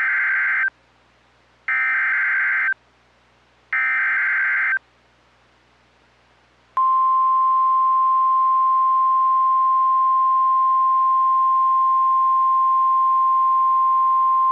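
Emergency Alert System SAME header: three short bursts of warbling digital data screech, each under a second long with about a second between them. After a short pause, the steady single-pitched weather-radio warning alarm tone starts and holds. Together they mark the start of a new warning broadcast.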